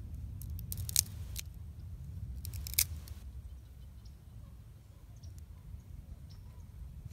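Dry twigs crackling and snapping as they are handled and dropped into a small wood-burning twig stove, in two short crackly bursts about two seconds apart, with a few faint ticks afterwards. A steady low wind rumble on the microphone runs underneath.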